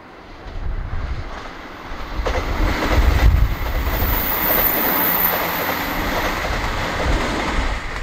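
JR Hokkaido KiHa 261 series diesel limited express train passing close by, loudest from about two seconds in as its cars go past, with a thin high whine in the middle of the pass. Strong wind buffets the microphone throughout.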